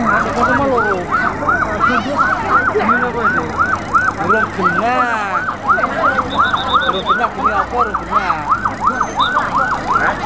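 Fire truck siren wailing in a fast yelp, its pitch rising and falling about three times a second without a break.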